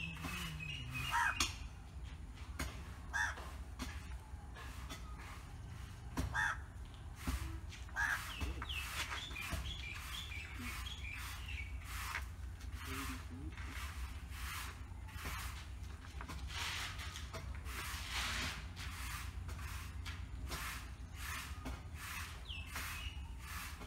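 Crows cawing again and again, with a few higher bird chirps, over repeated short scratchy strokes of a broom sweeping a rough concrete floor.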